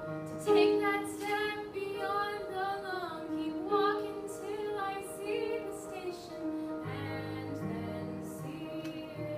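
A teenage girl singing solo over an instrumental accompaniment of sustained chords. Her voice comes in about half a second in and drops out around seven seconds, while the accompaniment carries on with lower notes added near the end.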